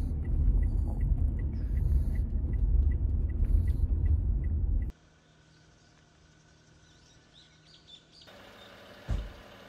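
Steady low road rumble inside a moving car, with a light, even ticking of about three clicks a second. About five seconds in it cuts to much quieter open air, with one dull thump near the end.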